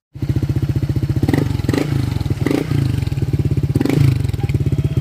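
Honda PCX 160 scooter's single-cylinder four-stroke engine idling through an aftermarket MT8 power pipe exhaust with a black stainless tip: a steady, rapid putter with a few brief louder swells.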